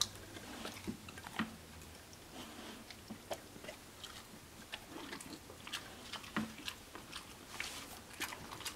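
An Australian Shepherd chewing a hard-baked pumpkin and peanut butter dog treat: faint, irregular crunches and clicks.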